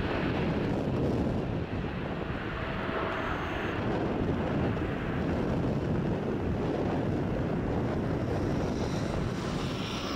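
Boeing 777-300ER's GE90-115B turbofan engines at takeoff thrust as the jet climbs out, a steady deep roar of jet noise mixed with wind buffeting on the microphone.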